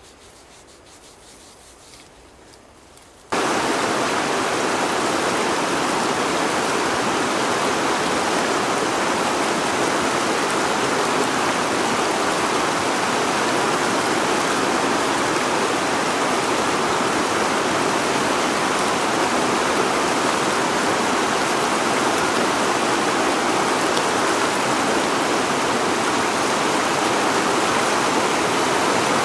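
Whitewater river rapids rushing, a loud, steady noise of fast water that cuts in suddenly about three seconds in, after a few quiet seconds with faint ticks.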